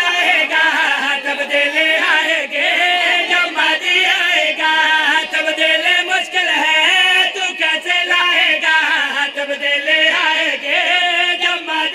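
Male voices chanting an Urdu devotional qaseeda through microphones, in continuous sung phrases that rise and fall.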